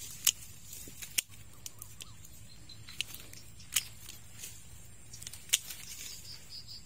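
Twigs and dry brush snapping and crackling as someone pushes through undergrowth: a few sharp snaps a second or more apart, the loudest near the start and again about two-thirds through, over faint steady background noise.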